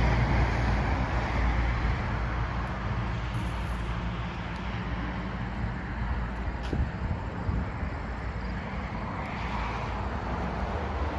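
Steady road and engine noise of a car driving along, heard from inside, easing off a little in the first few seconds.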